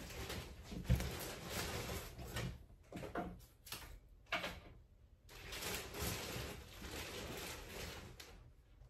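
Rustling and handling of a bag of yarn skeins as they are pulled out, coming and going with a short lull around the middle, and a low thump about a second in.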